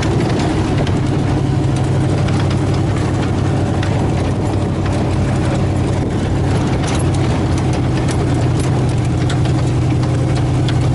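Chevy 350 V8 engine of a 1975 Toyota FJ40 Land Cruiser running steadily, with scattered light clicks over the hum.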